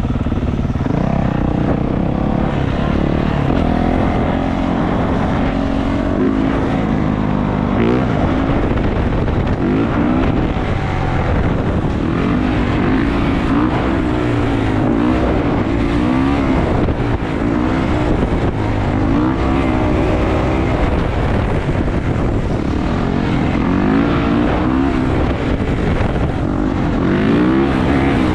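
Single-cylinder four-stroke 450 dirt bike engine running hard, its pitch rising and falling again and again as the throttle is opened and closed and the gears change.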